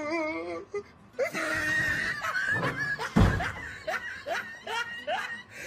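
A heavy wooden crash about three seconds in, as a wardrobe door comes loose and falls, amid a person laughing and shrieking.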